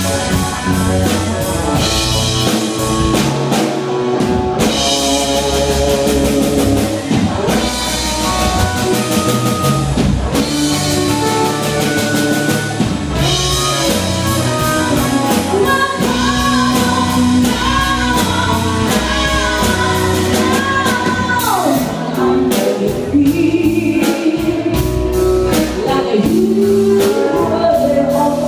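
Live rock band playing: drum kit, electric guitar, bass guitar and keyboard, with a woman singing lead.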